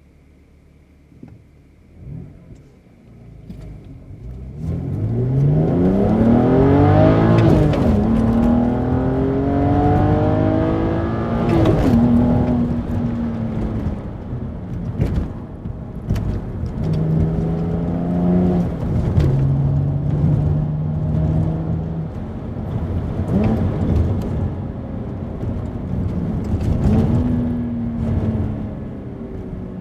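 BMW N52B30 3.0-litre straight-six with a BMW Performance rear silencer and the midpipe deleted, heard from inside the cabin: a quiet idle, then from about four seconds in full-throttle acceleration through the gears of the manual gearbox, the engine pitch climbing and dropping at each upshift. After the first shifts it runs more steadily, with further rises in revs near the end.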